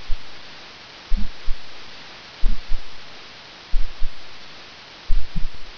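Computer keyboard keystrokes heard as about seven dull low thumps in small groups over a steady microphone hiss.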